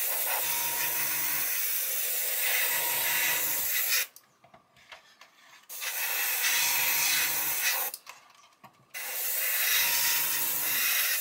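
Airbrush spraying paint: a steady airy hiss that stops twice, about four seconds in for a second and a half, and again near eight seconds for about a second, as the trigger is released and pressed again.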